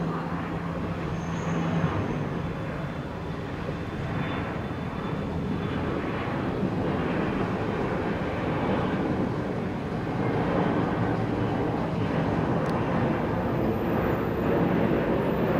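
Japan Airlines Boeing 767 jet airliner on approach with its gear down: a steady rush of jet engine noise that slowly grows louder as it comes overhead.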